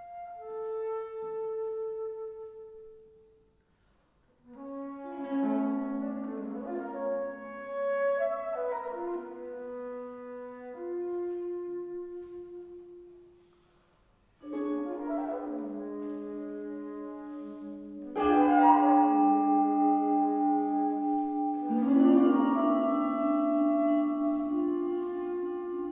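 Chamber ensemble of flute, clarinet, harp, piano and vibraphone playing slow, quiet music: long held wind notes in phrases broken by two brief pauses, growing louder and fuller about eighteen seconds in.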